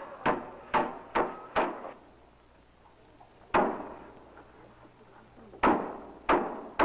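Hammer blows on wooden boards. Four quick strikes about half a second apart, a pause, a single strike, then more strikes near the end.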